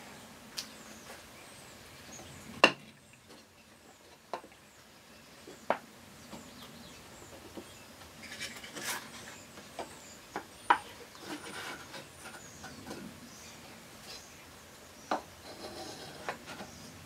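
Wooden box panels being handled and fitted together during a glue-up: a handful of light wood-on-wood knocks, the sharpest about two and a half seconds in, with soft rubbing and rustling between them.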